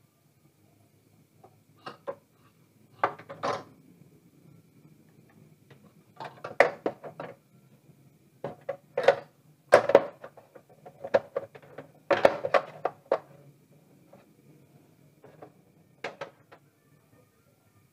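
Metal LED backlight strips clattering against the plastic back cabinet of an LED TV as they are handled and laid out, in irregular bunches of clicks and light rattles.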